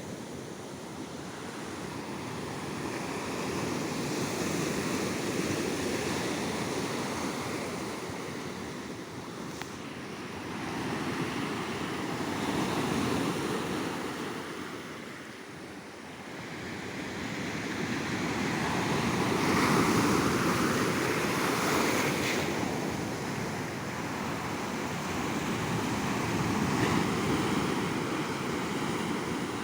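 Ocean waves breaking and washing up on a beach, the surf swelling and falling back every several seconds, loudest about two-thirds of the way through. Light wind noise on the microphone.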